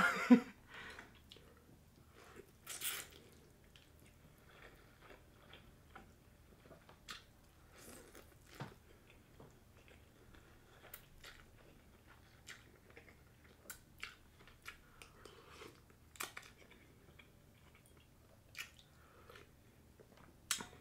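A person eating ramen noodles: quiet chewing, slurping and wet mouth sounds, with scattered small clicks.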